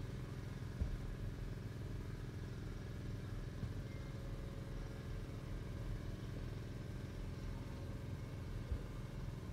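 Steady low background hum with no speech, and a faint click about a second in.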